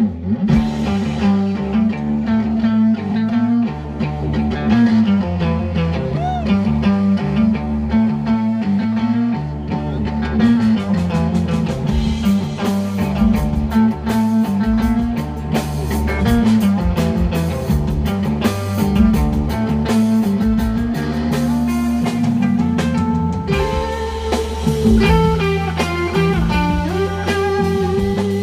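Psychedelic rock band playing live in an instrumental passage with no vocals: electric guitar riffing over a moving bass line and drums. The drums and cymbals get busier about ten seconds in.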